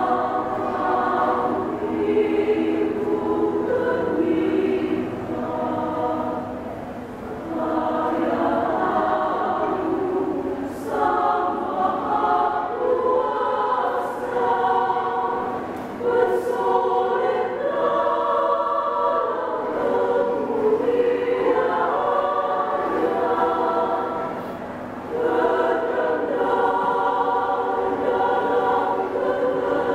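Women's choir singing a hymn together in long held phrases, with short breaks between phrases.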